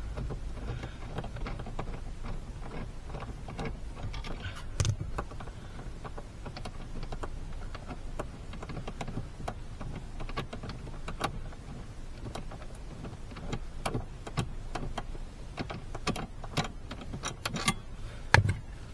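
Irregular metallic clicks and knocks of hand tools working on a car seat's mounting bolts, with a louder knock near the end.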